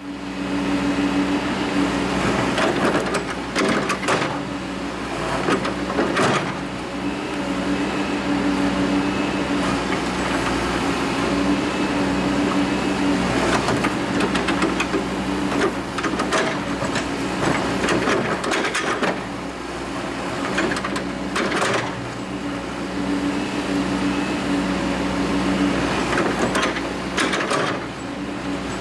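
Backhoe engine running steadily under load, with knocks and scrapes every few seconds as the bucket breaks and digs out frozen concrete and dirt.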